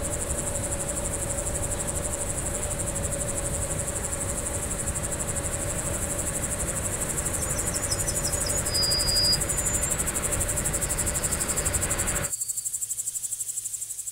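Insects trilling in a fast, steady, high-pitched pulse, over a low rumble and a steady hum that cut off suddenly about twelve seconds in, leaving the trill alone. A short high chirp comes about nine seconds in.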